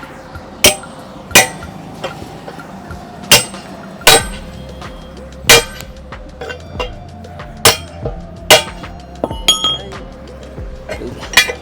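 Hammer blows on a steel wheel rim as a tyre is worked off it: about nine sharp, ringing metal strikes at uneven intervals, one to two seconds apart.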